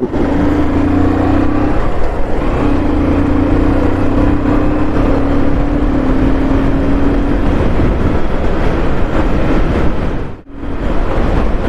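Vehicle on the move: steady engine and road noise with a humming engine note that drifts slowly lower, and a brief drop in sound about ten seconds in.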